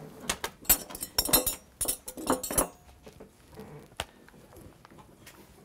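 Tableware clinking: a quick cluster of sharp clinks of cutlery, dishes and glass over the first couple of seconds, then a single click about four seconds in.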